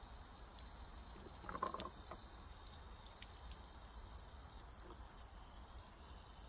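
Faint steady splashing of a thin stream of water from a garden hose spray nozzle onto crystals and a wooden deck, with one brief louder sound about a second and a half in.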